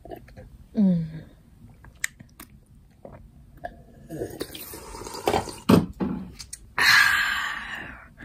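A person drinking water from a plastic cup: wet mouth sounds of sipping and gulping, then a loud breathy exhale near the end as the cup comes down.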